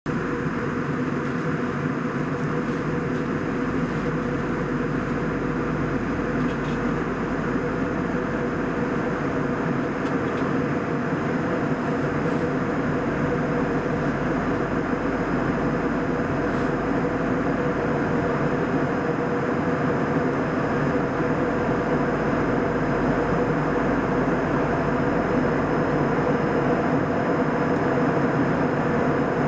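Steady cabin drone inside a Boeing 737-800 airliner in flight at altitude: engine and airflow noise with a constant low hum and a faint high whine over it.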